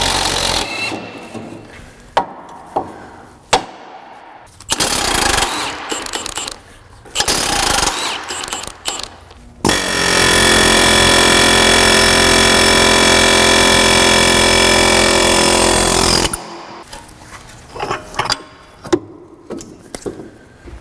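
Pneumatic air hammer hammering on the end of a stuck front drive axle to drive it out of the wheel hub: several short bursts, then a steady run of about six seconds.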